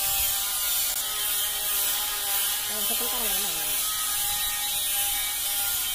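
A machine running steadily with a whirring, rattly mechanical hum that holds the same pitch throughout.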